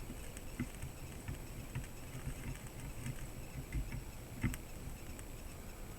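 Faint, irregular light ticks and taps of a chisel-tip soldering iron worked along a surface-mount IC's legs in drag soldering, the clearest tap about four and a half seconds in.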